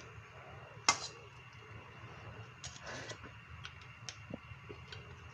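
A ladle knocking against the rim of an aluminium soup pot: one sharp click about a second in, then a few faint ticks over a low steady hum.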